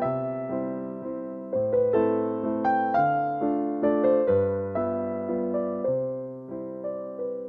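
Background music: a gentle piano or electric-piano tune, with notes struck and left to fade and a new bass note about every second and a half.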